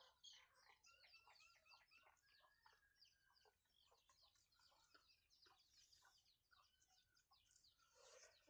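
Near silence, with faint, rapid bird chirping in the background throughout.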